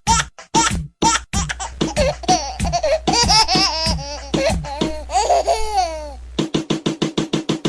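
Children's crazy-laughter sound effect: quick bursts of laughter, then high, wavering giggles. About two-thirds of the way through it turns into a fast, very even repeated pulse of laughter.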